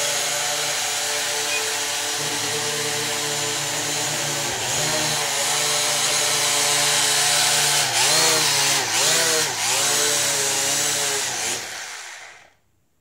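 ProMark VR quadcopter's electric motors and propellers spinning with a steady whine. The pitch dips briefly once about four seconds in and three times more later on, then the motors wind down and stop just before the end.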